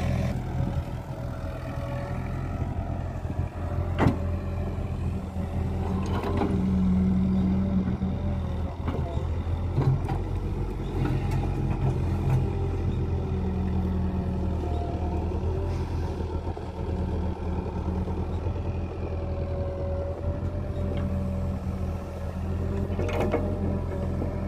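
Diesel engine of an IHI crawler excavator running steadily under load while it scoops and dumps sand into a tractor trolley, with a few sharp knocks.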